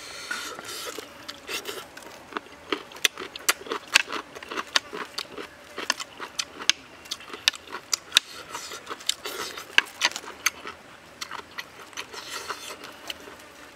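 A person eating squid salad: chewing, with frequent irregular sharp wet clicks and smacks of the mouth.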